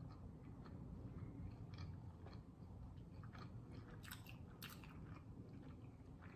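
Faint chewing of a bite of cheese deep-dish pizza: soft, irregular mouth clicks and crunches, with a few louder ones about four seconds in.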